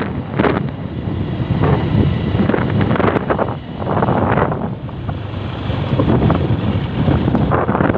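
Wind buffeting the microphone in uneven gusts over the low rumble of a vehicle travelling along a gravel road.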